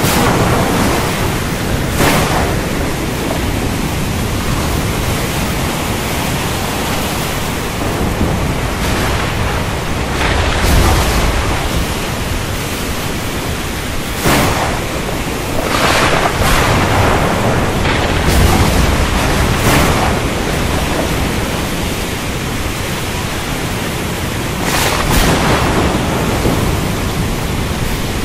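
Thunderstorm ambience: a steady rush of rain and wind broken by several sharp thunder cracks, with deep thunder rumbles in the middle.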